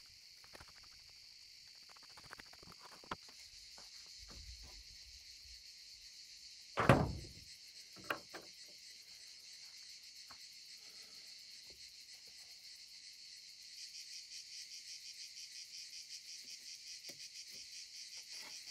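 Steady high insect chirring that turns into an even pulsing about two-thirds of the way through. A single loud thump about seven seconds in, and a smaller knock a second later.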